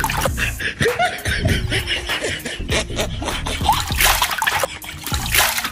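Water poured from a mug over a person's head, splashing onto a concrete floor in a few bursts, over background music.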